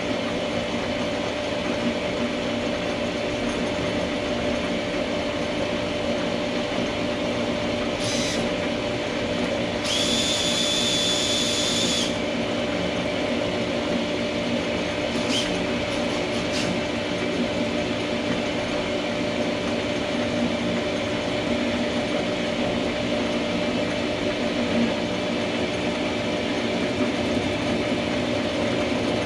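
Small benchtop metal lathe running steadily while facing a part, its cross slide fed by a cordless drill on the handle. A brief higher whine for about two seconds rises over the steady machine sound about ten seconds in.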